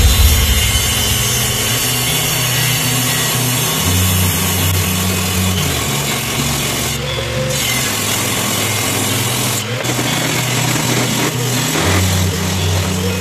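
Table saw ripping oak boards, with background music laid over it, its bass notes changing every second or two.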